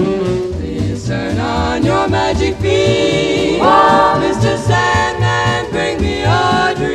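Music: a song with sung vocals over a pulsing bass line.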